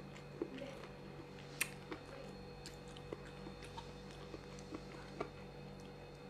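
Faint eating sounds: a person chewing, with scattered small clicks and crunches, the sharpest about a second and a half in, over a steady electrical hum.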